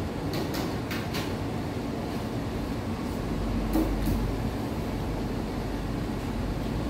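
Fried chicken being pulled apart by hand and eaten, a few short crackles and clicks over a steady background hum.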